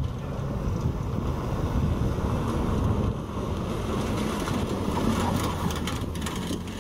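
Toyota pickup's engine running hard under power as the truck slides through a dirt rallycross course, with tyres scrabbling on loose dirt. Near the end, as it passes close, there is a crackle of spraying dirt and gravel.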